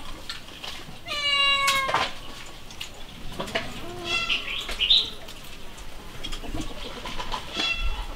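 An animal's call, one drawn-out pitched note just under a second long, about a second in; short high chirps follow around four to five seconds in, and another short call near the end.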